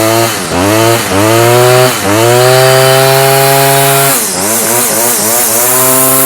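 Stihl FS46 string trimmer's two-stroke engine revving on its new carburetor: several quick throttle blips, then held at high revs for about two seconds, a brief drop, and held high again near the end. It picks up cleanly and holds revs, the sign that the carburetor kit has cured its no-start problem.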